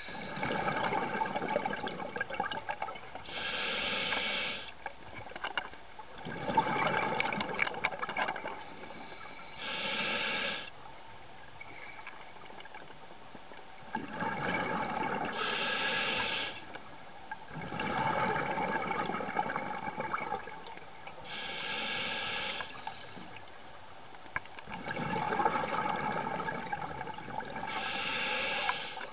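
Scuba diver breathing underwater through a regulator, about five breaths: each a short high hiss as the demand valve opens on the inhale, then a longer rush of exhaled bubbles.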